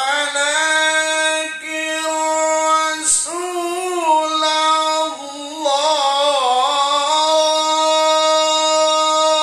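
A man's melodic Qur'an recitation (tilawah) sung into a microphone, high-pitched and loud: long held notes with wavering, ornamented turns a few seconds in, then one long steady note.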